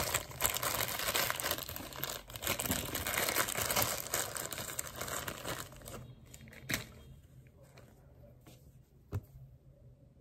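Soft plastic packet of cotton pads crinkling as it is handled and a cotton pad is pulled out of it. The rustling stops about six seconds in, leaving a few faint light clicks.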